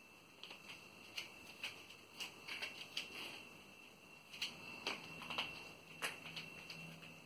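Light, irregular clicks and taps of cats' claws and paws on a tile floor and foam mat as they chase yarn, a few a second and bunching up near the middle. A faint steady high-pitched whine lies underneath.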